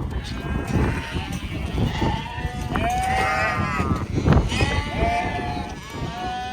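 A mob of ewes and lambs bleating, many calls overlapping without a break.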